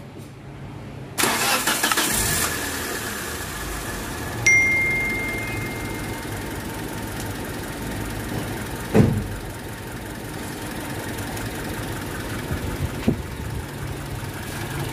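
2008 Mitsubishi Lancer's engine starting about a second in, then idling steadily. A short high beep comes a few seconds later, and a single thump midway.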